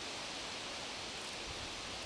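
Steady, even outdoor hiss with no distinct clicks or knocks.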